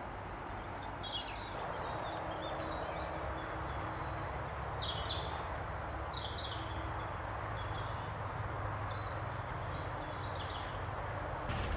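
Small birds singing and calling, with many short chirps and quick falling notes, over a steady low outdoor rumble.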